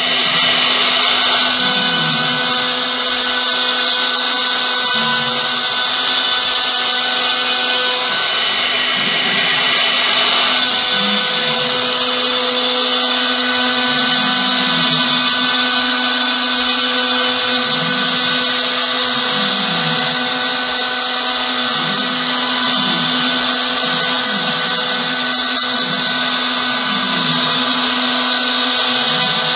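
CNC router spindle running with a steady high whine as its bit carves a pattern into a white-surfaced board, with a lower tone underneath that repeatedly dips and rises as the cut goes on.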